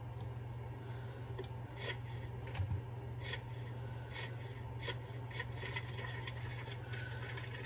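Paper pages and a ring binder being handled: about a dozen short rustling, scratching strokes, over a steady low hum.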